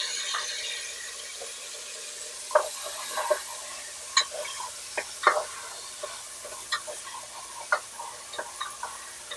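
Chili bean paste and ginger sizzling in hot oil in a pan while a spatula stirs them, scraping and clicking against the pan every second or so. This is the paste being fried over lowered heat to bring out its red oil.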